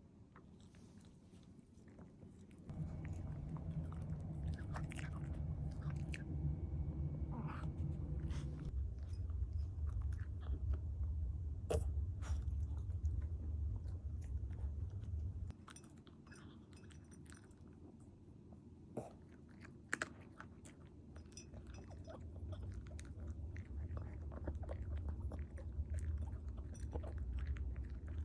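Maltipoo eating, chewing and crunching its food with scattered sharp clicks, over a low rumble that comes in about three seconds in, drops out midway and returns near the end.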